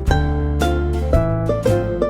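Background instrumental music with plucked-string melody notes over a steady bass.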